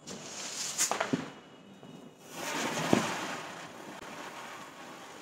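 A ground firework on a concrete floor hissing as it sprays sparks, starting about two seconds in and slowly fading, with a few sharp pops in the first three seconds.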